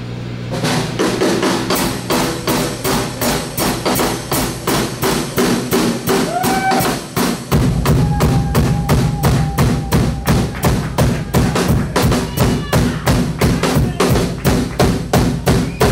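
Live rock band with a drum kit keeping a steady beat of about four strokes a second over sustained low instrument notes. About halfway in a heavy low end comes in and the music gets louder.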